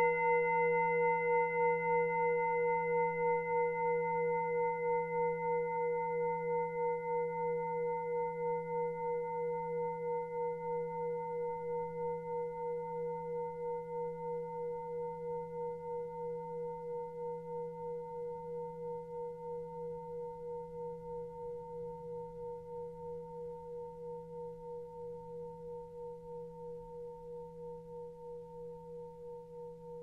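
Tibetan singing bowl ringing on after a strike, its few pure tones fading slowly with a steady pulsing waver. The struck bowl is the cue for the next hand position in a Reiki session.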